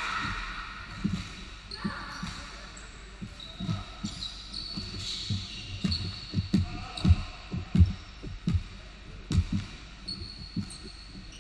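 Basketball bouncing on a hardwood gym floor, the bounces coming thick and loudest in the middle, with short high squeaks of sneakers on the floor.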